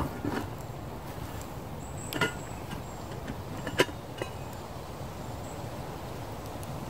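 Smoky campfire of damp split wood burning with a steady hiss, broken by a few sharp clicks, the loudest a little under four seconds in.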